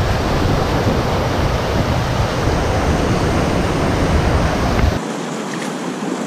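Whitewater rapid rushing over rock ledges, a loud, dense rushing noise. About five seconds in it cuts off abruptly to the quieter sound of moving river water.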